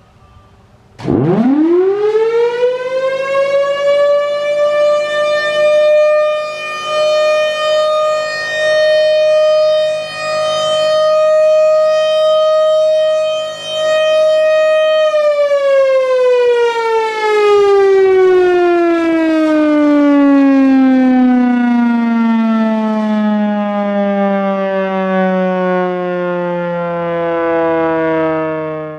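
A Thunderbolt mechanical outdoor warning siren sounding a single steady tone. It winds up fast about a second in, holds one pitch for about fourteen seconds, then winds down slowly, its pitch falling until it cuts off at the end.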